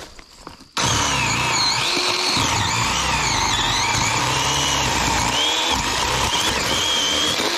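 Battery-powered chainsaw switched on about a second in and cutting through branches, its motor whine wavering and dipping in pitch as the chain bites into the wood.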